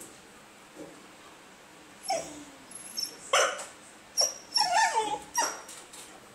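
Basenji dog making its strange whining, yipping calls, four or five short cries with falling, wavering pitch that begin about two seconds in. It is the noise this basenji makes to ask for attention, when it wants to play or to go outside to pee.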